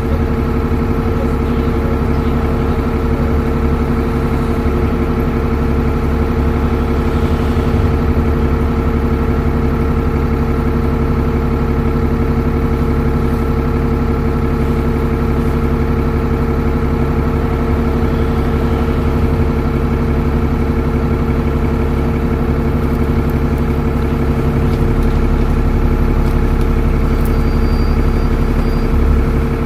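Dennis Trident double-decker bus's diesel engine idling at a constant speed, with a low rumble that grows slightly stronger near the end.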